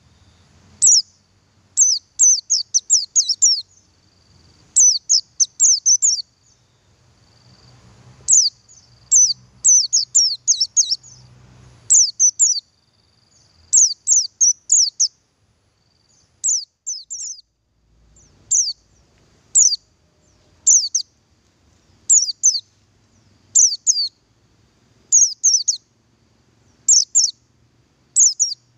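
Male buxtoni white-eye calling: short, high chirping notes in quick clusters of two to six, repeated every second or two.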